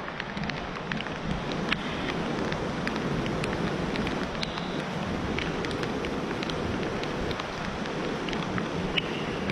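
Steady rain falling, with scattered sharp ticks of individual drops striking close by, and some wind.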